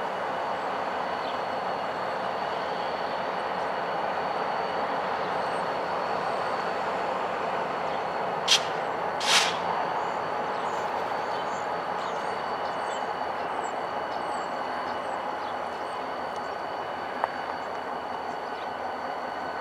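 Montana Rail Link diesel-electric locomotive standing with its engine running: a steady rumble with thin, high steady tones over it. About halfway through come two short, sharp sounds in quick succession, the second slightly longer.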